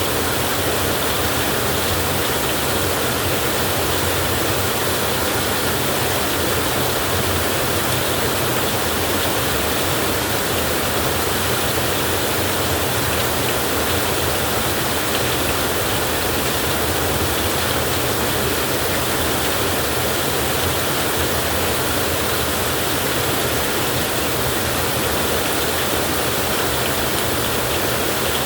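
Heavy rain falling steadily, an even unbroken hiss with no thunder claps.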